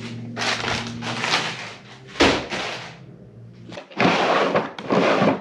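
Handling noises from someone working in a workshop: rough scraping and rustling, a sharp knock a little after two seconds in, and more scraping near the end.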